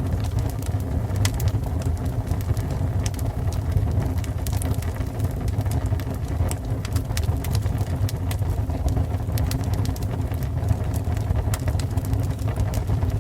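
Fire burning, with a steady low rumble and many irregular sharp crackles and pops.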